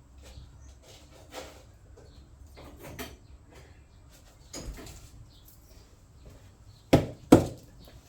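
Scattered light rustling and clatter of objects being handled, then two loud sharp knocks close together, about seven seconds in, like something hard being set or banged down.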